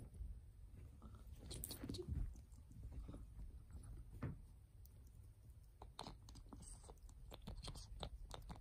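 A ferret chewing and licking, faint, with quick small clicks of its teeth on a hard plastic bottle cap that come thicker toward the end.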